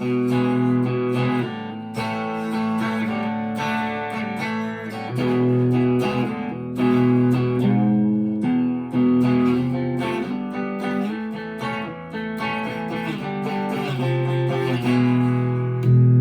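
Chapman ML3 Thinline Pro Classic electric guitar on its bridge pickup, played through a Harley Benton Tube15 valve amp set clean: a run of strummed and picked chords left to ring, changing every second or two.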